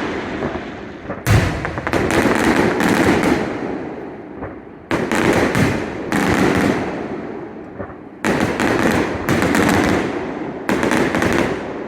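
Fireworks going off: a string of loud bursts, each starting suddenly and crackling away over a second or two, a new one every one to three seconds.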